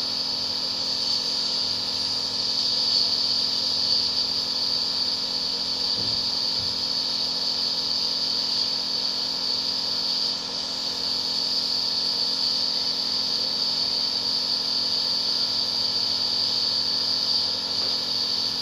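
Compressor nebulizer running steadily: a continuous mechanical hum with a high, even hiss.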